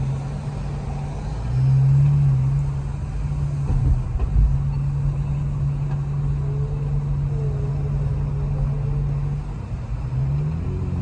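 Car engine and exhaust droning steadily in the cabin while driving in traffic. The drone swells briefly about two seconds in, there are a couple of low thumps around four seconds, and near the end the revs rise.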